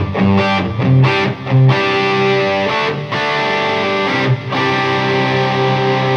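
Overdriven electric guitar played through a Bludotone Mini amp's drive channel with the bright control at its higher setting: a few quick chord hits, then a held chord that rings on, a brief break, and another long sustained chord.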